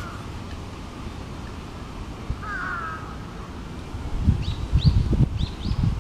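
Crows cawing: one wavering caw about halfway through, then a run of short, sharp, falling high calls from about four seconds in. Loud low buffeting bursts, like wind hitting the microphone, come in with the high calls. The uploader takes the calls for an earthquake warning.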